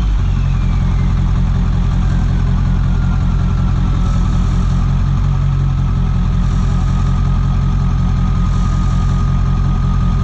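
Ford one-ton diesel dump truck idling while its dump bed is powered down by the hydraulics, with a thin whine slowly falling in pitch over the engine's rumble.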